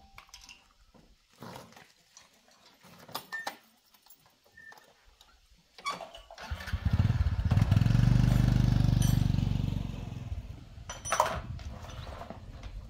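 Small step-through motorcycle engine starting about six seconds in, running loudly for a few seconds, then dropping to a lower level. A few light knocks and clicks come before it.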